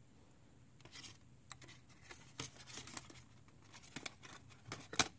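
Aluminium foil crinkling in short, irregular crackles as hands handle and shape it, loudest just before the end.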